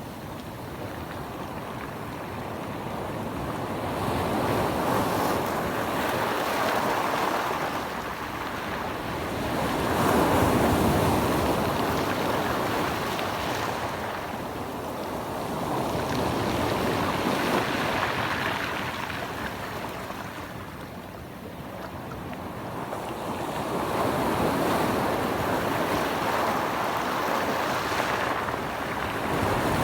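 Mediterranean Sea waves washing in, the rush of water swelling and fading in slow surges every five or six seconds.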